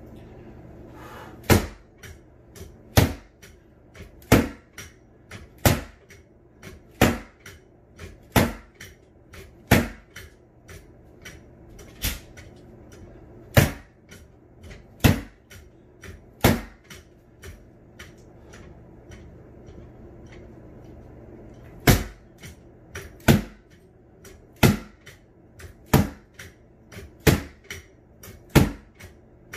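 Repeated sharp whacks of an SCA rattan sword hitting a freestanding vinyl punching bag used as a pell, about one every second and a half, with a pause of several seconds past the middle. Fainter knocks come between the strikes.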